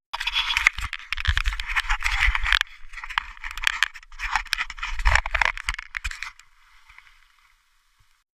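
Irregular rustling and scraping with scattered clicks and low bumps, fading away about six seconds in.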